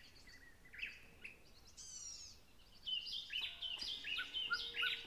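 Small wild birds calling faintly: a few short chirps and downward-sweeping calls, then from about three seconds in a quick run of repeated chirps.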